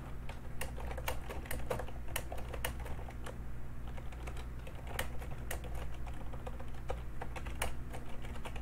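Typing on a computer keyboard: irregular clicking keystrokes, several a second, over a low steady hum.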